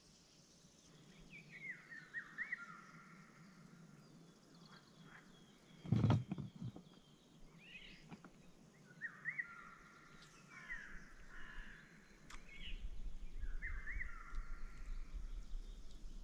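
A songbird singing a short chirping phrase several times. About six seconds in there is one dull knock, the loudest sound here, and a low rumble runs through the last few seconds.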